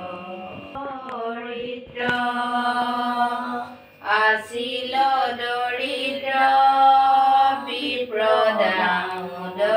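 Women chanting Assamese devotional verses from a book in a sing-song melody, drawing out long held notes, with a short breath-pause about four seconds in.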